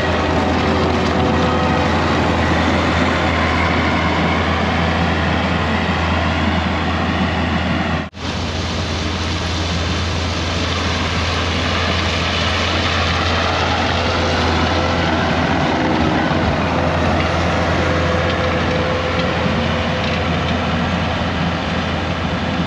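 A vehicle driving along a gravel road: steady engine and road noise with a strong low hum, broken by a brief cut about eight seconds in.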